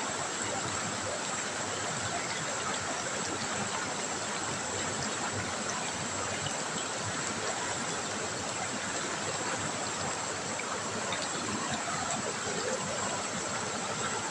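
River water trickling, a steady, even rush of flowing water.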